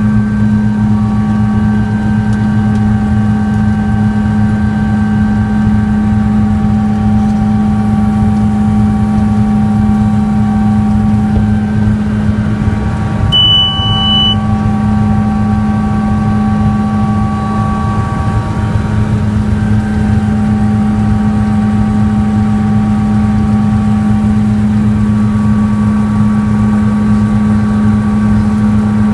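Sikorsky S-76 helicopter in flight, heard from inside the cockpit: a steady loud drone from the rotor and twin turboshaft engines, with several thin, steady whining tones above it. A short high beep sounds once, about halfway through.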